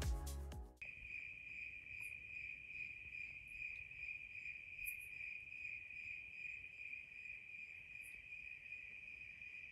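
Background music cuts off under a second in. It leaves a steady, unbroken high-pitched chorus of crickets.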